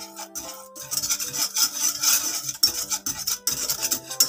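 Wire whisk scraping and swishing round a metal saucepan of milk that is being cooked down into condensed milk, a continuous rasping stir. Soft background music plays underneath.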